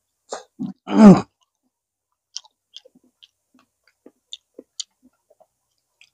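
A person eating pig's tail stew close to the microphone: a short loud vocal sound about a second in, then scattered faint wet chewing clicks and mouth smacks.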